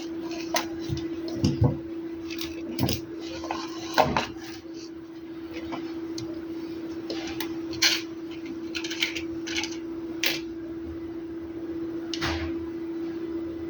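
Small hard objects clicking and tapping against each other in irregular knocks, over a steady hum.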